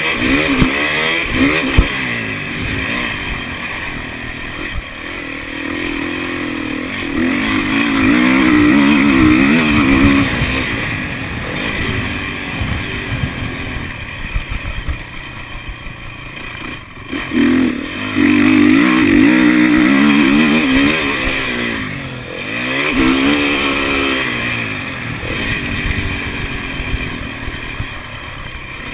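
Motocross dirt bike engine heard from on the bike as it is ridden around a dirt track, its pitch repeatedly rising as the throttle opens and falling as it closes. Once, about two-thirds of the way through, the engine note drops out briefly before surging back up.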